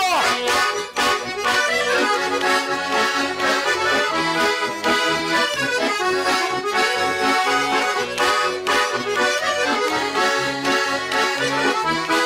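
Bayan (Russian button accordion) playing an instrumental interlude of a Russian folk song: a melody over a rhythmic accompaniment in the low notes.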